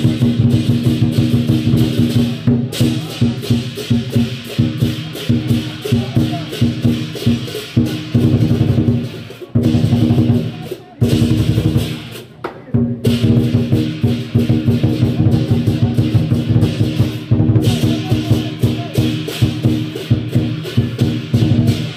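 Lion dance percussion: a large Chinese drum beaten in fast, driving strokes with cymbals crashing over it. There are a few short breaks in the rhythm near the middle.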